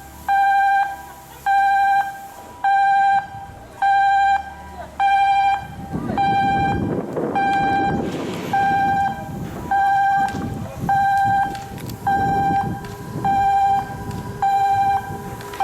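An electronic warning alarm beeping steadily, a half-second tone about once a second, the kind sounded by moving cranes or vehicles in a shipyard. From about six seconds in, a low rumble of heavy machinery runs under the beeps.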